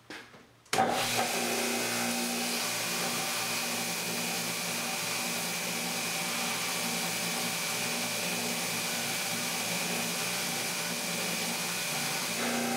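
Steel bar being ground on a home-built 2x72 belt grinder with a worn 60-grit ceramic belt, driven by a 1.5 hp single-phase 3450 RPM motor: a steady grinding hiss that starts abruptly about a second in, over the motor's hum. Near the end the bar comes off the belt and the motor's hum is left.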